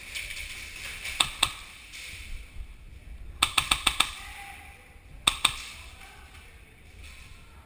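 Airsoft gun shots: two sharp cracks, then a quick string of about five, then two more.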